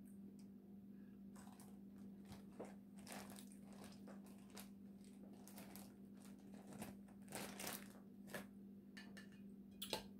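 Plastic zip-top food bag crinkling and rustling in a run of short crackles as hands dig into it and lift out a boiled crab, with one sharp click near the end. A faint steady hum runs underneath.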